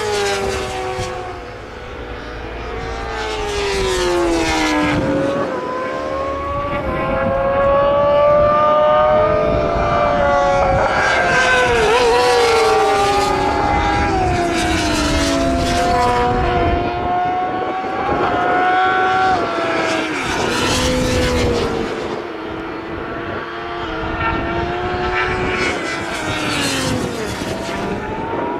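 Superbike and supersport racing motorcycles passing at speed on a road circuit, several engines overlapping. Their engine notes swell and drop in pitch as each bike goes by, with a new loud pass every few seconds.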